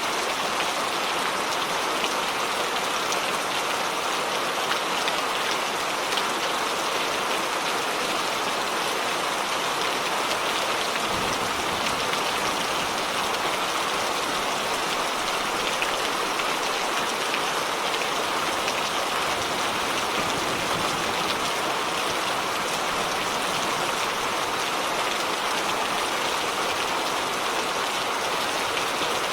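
Steady heavy rain falling and pattering on surfaces, an even dense hiss. A low rumble joins underneath about eleven seconds in and carries on.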